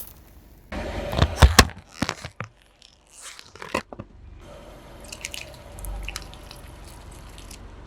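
Something being crushed under a car tyre: a cluster of sharp cracks and crunches about a second and a half in, then scattered smaller crackles and a faint low rumble.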